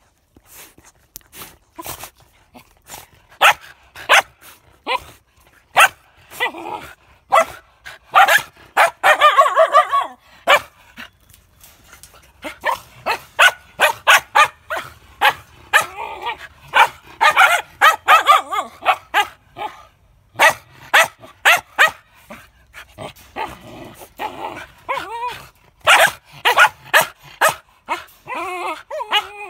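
Samoyeds barking and yipping in runs of quick, sharp barks, with short pauses between the runs.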